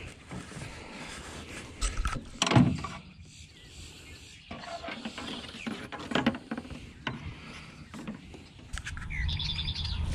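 Scattered clicks and knocks of fishing gear being handled on a pontoon boat, with a bird trilling rapidly near the end.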